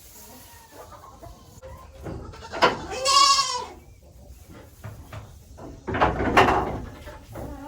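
A goat bleating: one clear, wavering bleat about three seconds in, then a louder, rougher call about six seconds in.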